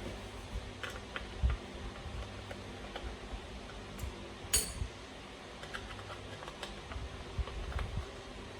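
Small metal hand tools and screws being handled and set down, giving scattered light clicks and clinks, with one sharper clink about four and a half seconds in, over a low steady hum.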